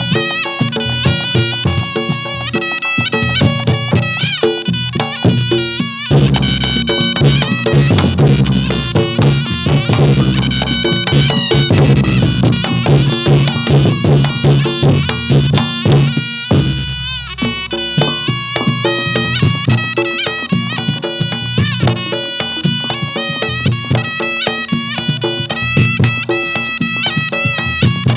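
Reog Ponorogo music for a jathilan dance: a slompret, a nasal double-reed shawm, plays a winding melody over kendang drums and percussion. A heavier low part swells in about six seconds in and drops out around sixteen seconds.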